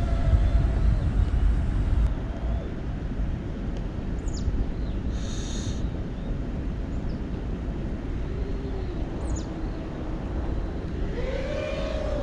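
FPV quadcopter spinning Foxeer Donut toroidal propellers, heard through a phone's microphone from the ground while it climbs and flies: a steady low rumble and hiss. In the last few seconds the motor tone swings up and down with the throttle. The pilot says these props give a different pitch range from ordinary blades, without the sharp tearing whine.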